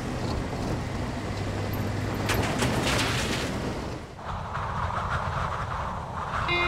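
A four-wheel-drive SUV driving fast over a rough dirt track, its engine and tyres giving a steady rumble with crunching from the ground. About four seconds in, the rumble gives way to a lighter rushing noise.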